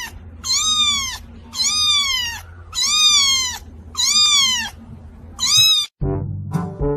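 A cat meowing over and over, a high-pitched meow about once a second: five long ones and a short one. Near the end it cuts off suddenly and brass music starts.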